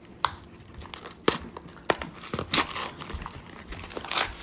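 Packaging of a tightly sealed Star Wars Legion upgrade card pack crinkling and tearing as hands work it open: a string of sharp crackles and short bursts of crinkling.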